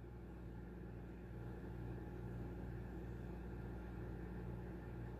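Steady low mechanical hum of household machinery, with a low throb pulsing about twice a second.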